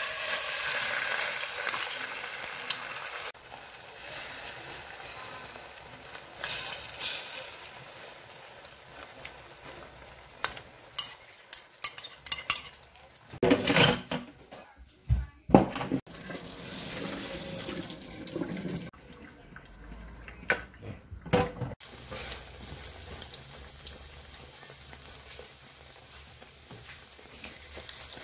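Kitchen cooking sounds in several short cuts: beaten egg with sliced hot dogs hitting a hot pan and sizzling at the start, then water poured off a pan into a stainless steel sink a little past the middle, with clinks of pans and utensils between.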